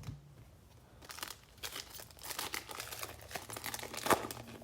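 Plastic wrapper of a basketball trading-card pack crinkling and tearing as the pack is opened, a run of fine crackles with one sharper snap near the end.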